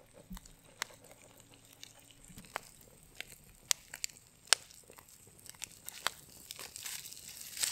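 Wood campfire crackling, with sharp single pops every second or so. Near the end, metal tongs grip a foil-wrapped package and the aluminium foil crinkles.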